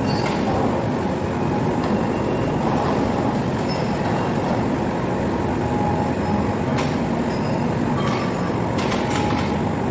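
Steady, loud mechanical rumble of heavy machinery running, with a few faint metallic clicks.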